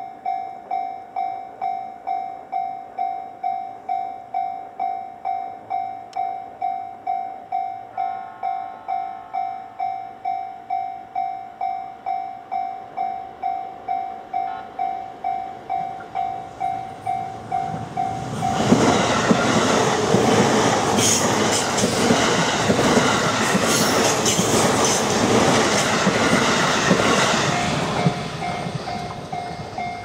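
Japanese level-crossing bell ringing in steady electronic pulses, about one and a half a second, with a faint distant electric train horn about eight seconds in. About 18 seconds in, a JR East E531 series electric train passes through the crossing, loud for about ten seconds and covering the bell, which is heard again near the end.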